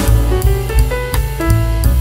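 Background music with a drum kit and bass notes.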